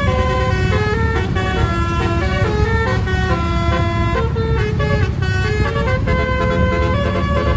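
Basuri (telolet) musical air horn on a bus playing a melody of short, stepped notes, over a steady low rumble.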